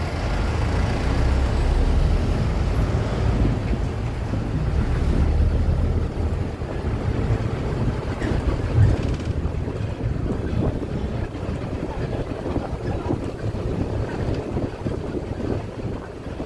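Street traffic noise with wind buffeting the microphone. A low vehicle engine rumble is strongest for the first six seconds or so, then gives way to rougher, gusting noise.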